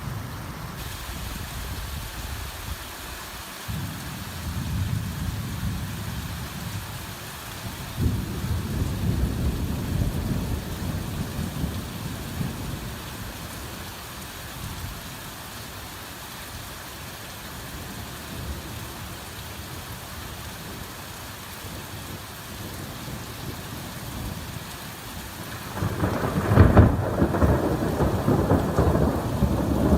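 Heavy rain falling steadily, with low rolls of thunder rumbling from about four to twelve seconds in, and a louder peal of thunder breaking near the end.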